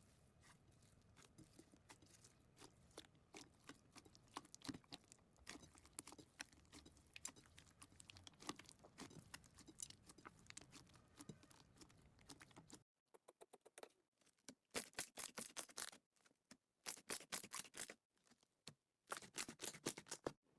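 Slime being squeezed and worked by hand, giving dense runs of small crackling clicks. About two-thirds of the way through the background drops away and the clicks come in short, crisp clusters with silence between them.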